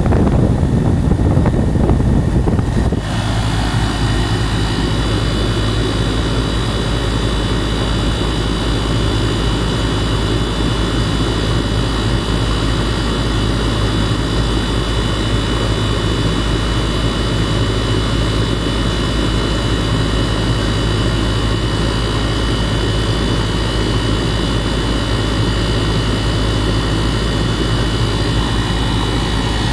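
2018 Goodman 2.5-ton gas pack running in cooling mode: compressor and condenser fan giving a steady hum with a high whine. The sound changes abruptly about three seconds in, then holds steady.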